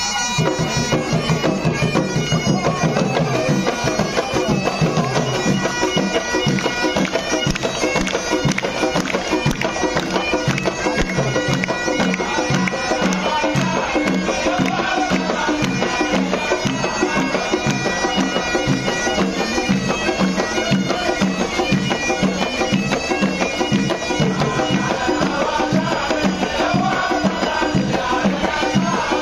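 Live folk music: a bagpipe plays a droning, reedy melody over a steady beat on several double-headed barrel drums.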